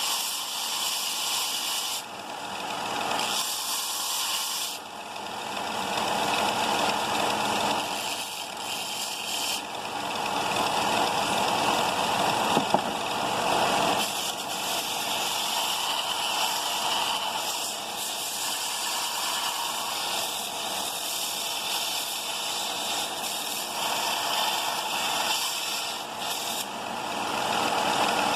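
Bauer 4x36-inch belt and 6-inch disc sander running while steel parts are ground down to bare metal: a steady, harsh grinding hiss that dips briefly about two and five seconds in.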